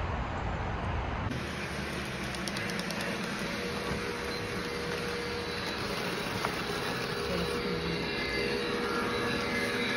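Electric model trains running around a layout, with a steady whir of small motors and wheels on the track and a thin steady hum that appears about four seconds in.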